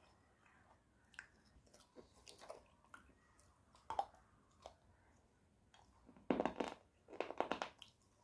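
Teeth biting and crunching a hard white slate-clay bar, close to the microphone: scattered small cracks, a sharper snap about four seconds in, then two dense runs of crunching near the end.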